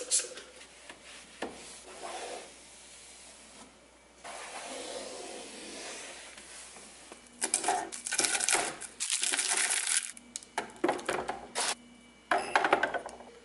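A cloth rubbing across a cabinet shelf as it is wiped clean. From about seven seconds in, a run of sharp clicks and knocks as small items such as an incense burner are set down in a clear acrylic organiser box.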